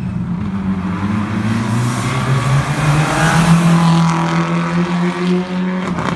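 Rally car engine under hard acceleration, its pitch rising steadily through one gear. It grows loudest three to four seconds in, and the throttle lifts just before the end.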